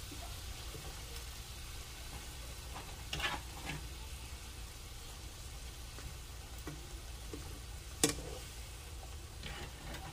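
Gravy sizzling in a skillet as fried pork neck bones are laid back in, a steady hiss with a few taps of a wire skimmer against the pan. The sharpest tap comes about eight seconds in.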